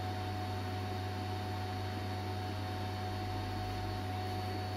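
The air pump of a Metcal HCT2-120 hot air rework station running steadily, a low hum with a hiss of air, blowing unheated air through the handpiece in its stand to cool it down after the heater has switched off.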